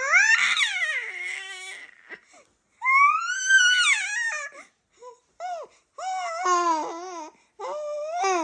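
A baby's loud, high-pitched wailing babble: two long cry-like calls with the pitch sliding up and down, then three shorter squeals.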